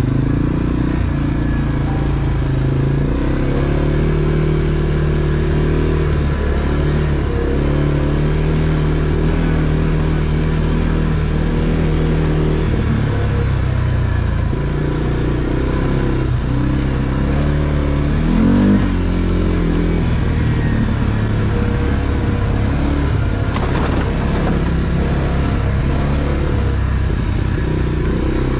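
ATV engine running under way, its pitch rising and falling with the throttle, with one short rev about two-thirds of the way through.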